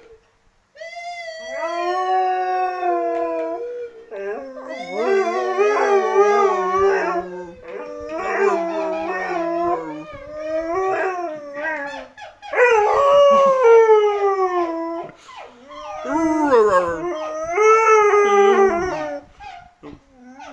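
Husky howling: a string of long, wavering howls with short breaks between them, now and then joined by a second, lower voice.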